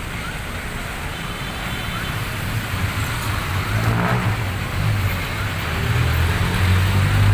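Street traffic with slow-moving pickup trucks passing close, their engines running with a low hum that grows louder toward the end.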